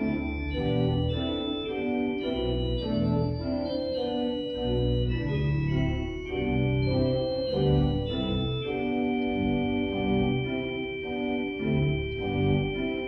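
Organ playing the service prelude: slow sustained chords that change every second or so over a moving bass line, settling on a long held chord about two-thirds of the way through.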